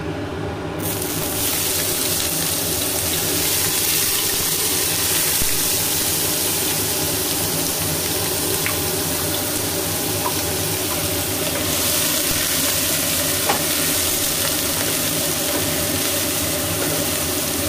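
Chopped onions frying in hot mustard oil with cumin seeds. The sizzle starts suddenly about a second in and then runs on steadily, with a few light taps of a wooden spatula stirring the pan, over a steady low hum.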